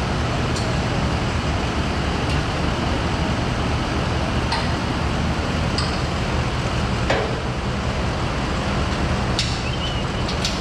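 Steady workshop background noise with a low hum. A few light, short clicks and knocks come from the metal hardware of a steel swing-out bumper carrier being handled.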